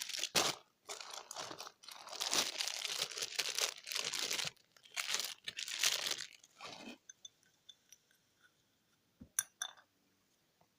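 Dare slips being shaken in a small plastic slime container: a crinkling, rustling rattle for about seven seconds. Two sharp clicks follow near the end.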